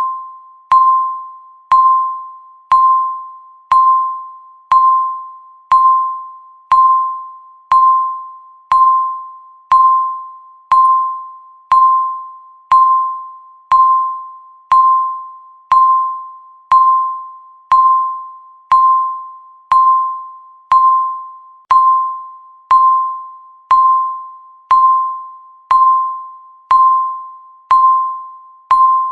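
Countdown timer beeping once a second: a short, single-pitched electronic beep that starts sharply and fades out, repeating evenly.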